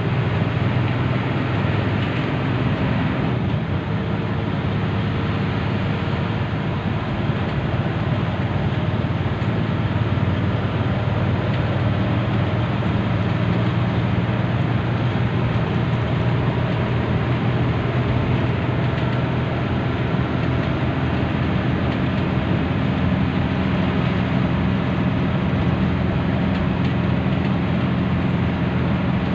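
Intercity coach's diesel engine running steadily at highway speed, with tyre and road noise, heard from inside the bus.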